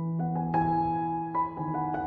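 Background piano music, with new notes struck about every half second over held lower notes.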